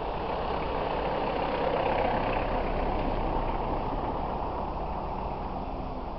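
Strong wind blowing across the microphone, a steady rushing rumble that swells about two seconds in and then eases slightly.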